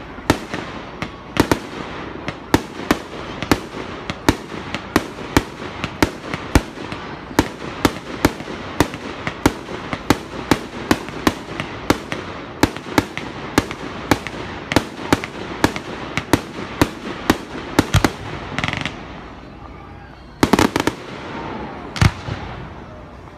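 Aerial fireworks shells bursting in rapid succession, two or three sharp bangs a second. The bangs thin out near the end, with a quick cluster and then a single bang.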